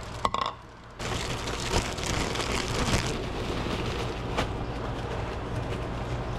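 A short clink, then from about a second in, hot oil sizzling and crackling steadily as floured, egg-washed trout pieces fry in it.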